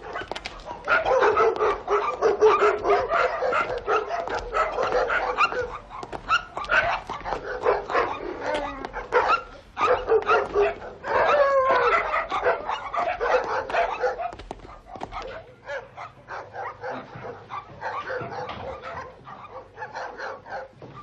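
Dogs in shelter kennels barking continuously, many overlapping barks, growing fainter after about fifteen seconds.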